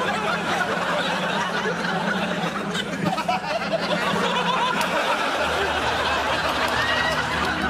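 Studio audience laughing throughout. About five seconds in, a low steady vehicle motor hum joins the laughter.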